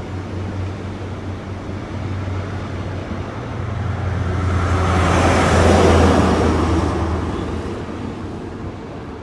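GWR 'Castle' set HST departing: a Class 43 power car's diesel engine drones steadily while the train's noise swells to a peak about six seconds in as it passes, then fades away.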